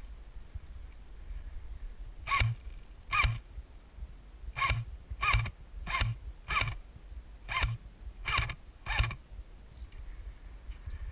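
Airsoft gun fired as single shots, nine in about seven seconds at uneven intervals. Each shot is a short mechanical snap with a brief whine.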